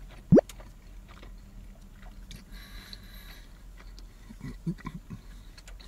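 A person chewing a mouthful of cheeseburger, with small soft wet chewing noises. About a third of a second in there is one brief, loud sound that sweeps sharply upward in pitch.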